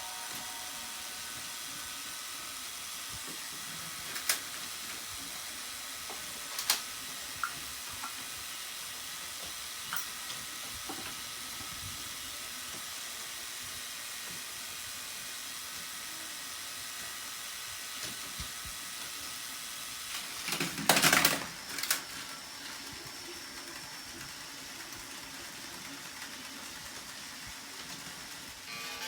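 Small electric motors of Plarail toy trains whirring as a steady hiss, with a few sharp plastic clicks. About two-thirds of the way in comes a loud clattering burst in two parts, a collision between the trains.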